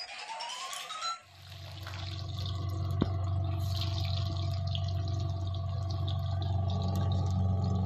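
Hot oil bubbling and crackling in a steel kadhai on a gas stove, over a steady low hum. A brief rising tone comes before it, in the first second.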